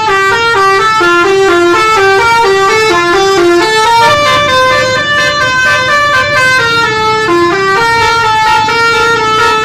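Bus telolet horn: a set of musical air horns playing a fast melody, several notes sounding together, quick alternating notes giving way to longer held chords in the middle, very loud.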